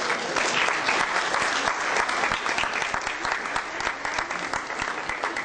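Audience applauding: a dense, steady run of many hands clapping that eases off slightly near the end.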